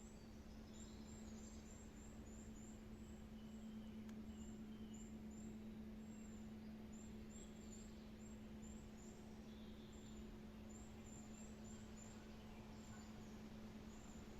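Faint woodland ambience: small birds giving many short, very high, thin chirps in quick clusters over a steady low hum.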